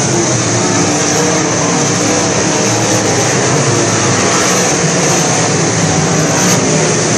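A pack of dirt-track sport modified race cars running at racing speed, their V8 engines revving together as the cars circle the oval and pass close by, loud and steady throughout.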